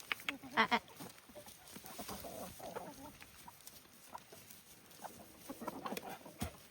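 Chickens clucking in short, scattered calls, loudest in the first second and bunching up again near the end.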